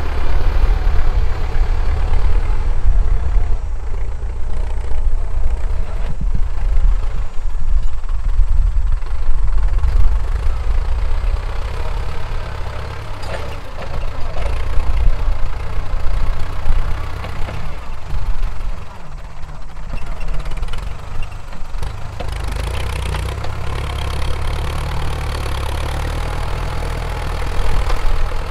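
Ford 6610 tractor's four-cylinder diesel engine running under load through a very loud exhaust pipe while ploughing. The level swells and eases several times, dropping back for a few seconds past the middle.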